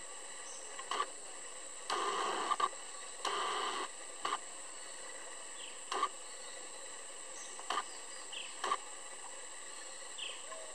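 Steady high-pitched insect drone from the forest. Over it come several short sharp noisy sounds, two of them lasting about half a second some two and three and a half seconds in, and a few brief faint chirps.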